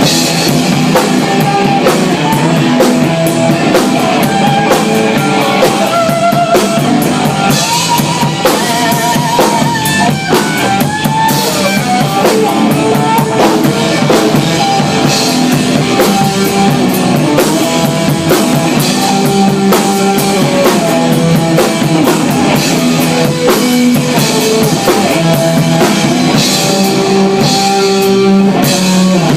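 Rock band playing live, with drum kit and guitar, loud and continuous.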